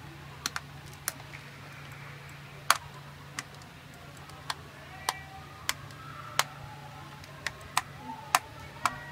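Computer mouse button clicked over and over: about a dozen sharp, single clicks at uneven spacing, over a steady low hum.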